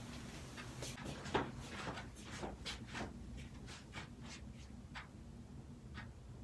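Chiropractic adjustment: a run of light clicks and small knocks, with one sharper pop about a second and a half in, the kind a joint gives when it is manipulated. A faint low hum sits underneath.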